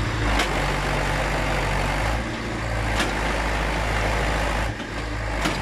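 David Brown 1390 tractor's diesel engine running steadily as it takes the strain on a tow chain, with a few sharp clicks.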